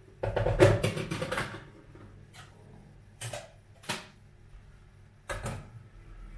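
Objects being handled: a burst of quick clattering knocks and rattles lasting just over a second, then four single sharp clicks spaced out.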